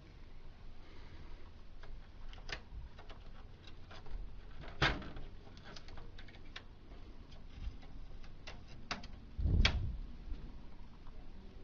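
Plastic printer tray and pickup roller parts being handled: scattered light clicks and taps, with a sharp knock about five seconds in and a heavier thump near the end.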